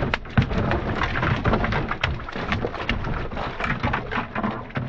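A catfish thrashing in a bucket of water, splashing it about in rapid, irregular slaps and spatters.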